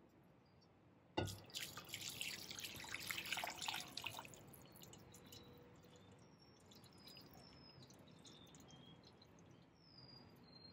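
Stock poured from a saucepan into a wok: a knock about a second in, then the liquid splashing loudly into the empty pan for about three seconds before settling into a quieter steady pour as the wok fills.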